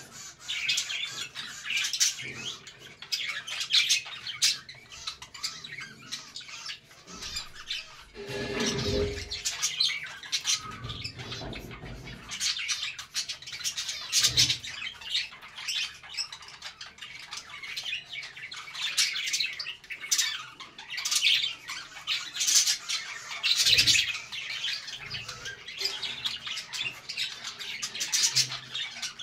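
A flock of budgerigars chattering and chirping without pause, many short high calls overlapping, with a brief low rustle about a third of the way in.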